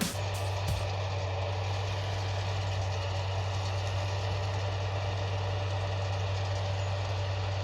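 Tractor engine running steadily with a deep, even drone.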